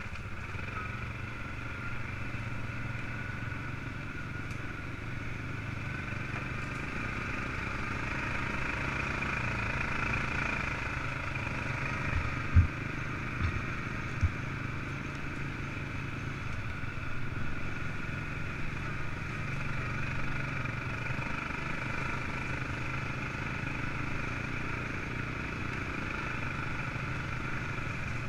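An ATV's engine running steadily while the quad rides along a bumpy dirt trail. Around the middle, a few sharp knocks stand out above the engine.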